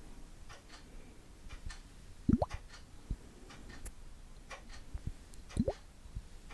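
ASMR trigger sounds: soft, light tapping and clicking about twice a second, with two louder plops that rise quickly in pitch, about two seconds in and near the end.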